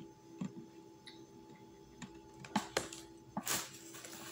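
Small scattered clicks and taps of eating and handling a plastic food container, with a brief rustle about three and a half seconds in, over a steady low hum.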